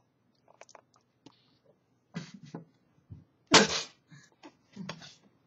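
A person sneezing once, loud and sudden, about three and a half seconds in, with shorter breathy sounds before and after it.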